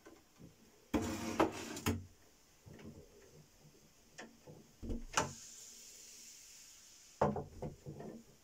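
Handling noises: knocks, clicks and scraping of equipment being moved by hand, in clusters: a loud stretch about a second in, a few separate knocks around four to five seconds, and another burst near the end, over a faint steady hiss.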